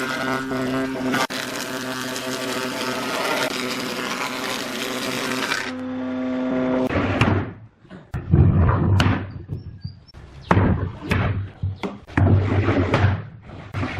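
A power tool runs with a steady whine and stops abruptly about six seconds in. Then come irregular knocks and thuds, like tools striking wood.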